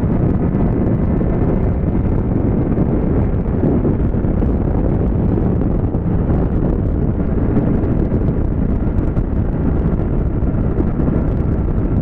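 Heavy wind buffeting on the microphone of a motorcycle's camera at highway speed, with the motorcycle's engine running steadily underneath.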